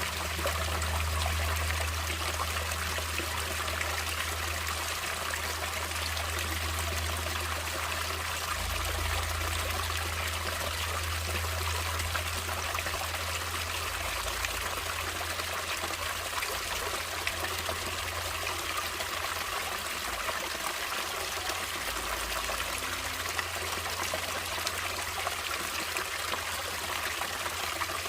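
Natural stream water flowing and splashing steadily over rocks, an even rushing trickle, with a low rumble underneath that shifts in level.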